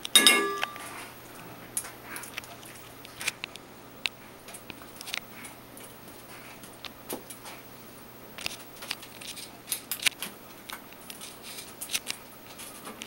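Scattered sharp metallic clicks and ticks of hand tools working as porcupine quills are pulled from a dog's muzzle, with a short louder pitched sound at the very start.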